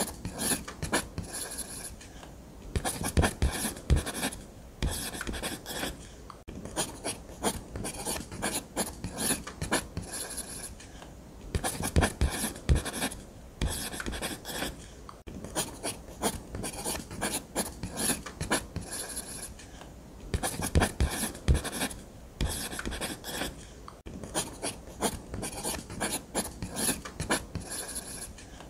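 Ballpoint pen scratching across paper in runs of quick strokes, broken by short pauses, with a few harder strokes now and then.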